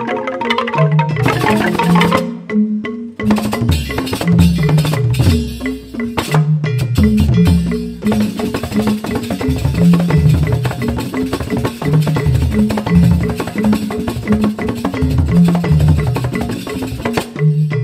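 Balinese joged bungbung gamelan: bamboo tube xylophones (grantang) playing a fast, stepping melody, with drum strokes joining the texture about three seconds in.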